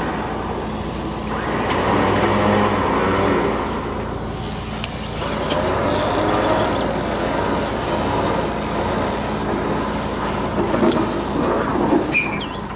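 Truck engine running steadily while the truck and its car trailer are being maneuvered, with a few faint knocks.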